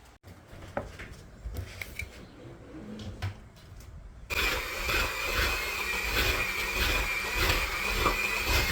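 Electric hand mixer switched on about four seconds in and running steadily with a high whine, after a few light clicks and knocks.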